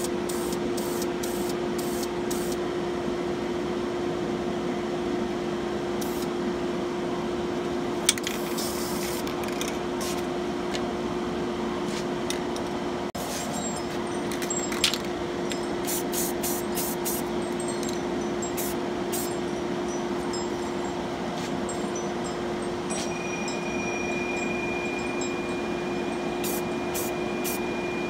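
Repeated short hissing bursts of an aerosol spray-paint can, over a steady mechanical hum. There are two sharp clicks partway through and a faint high whine near the end.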